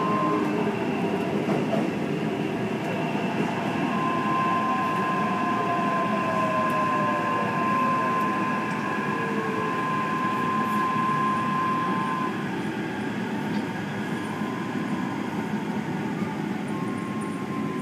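Taipei Metro train heard from inside the car as it brakes into a station: a steady running rumble with a high steady whine and lower motor tones that glide downward in pitch as the train slows, the whole getting slightly quieter toward the end as it nears a stop.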